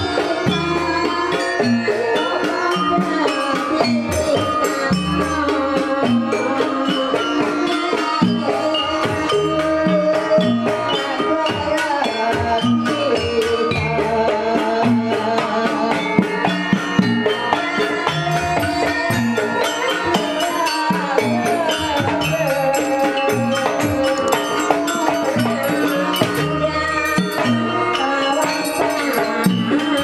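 Live Javanese gamelan ensemble playing jaranan dance music: kendang hand drums keeping a steady, driving beat under metallophones, gongs and a cymbal, with a wavering melodic line on top.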